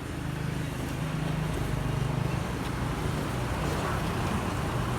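A motor vehicle's engine running close by: a steady low hum over street noise, growing a little louder over the first second or so.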